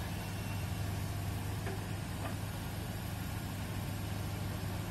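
Heavy-equipment diesel engine running steadily with a deep, even drone.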